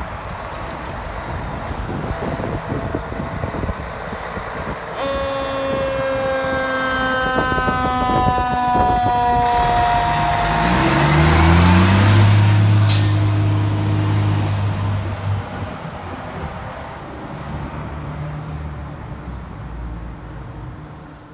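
American LaFrance fire engine pulling out and driving past on a call: about five seconds in, its horn sounds a steady blast for about five seconds, drifting slightly lower in pitch as the truck goes by. Its diesel engine then rises in pitch and runs loud as it passes close, and fades as the truck moves off down the street.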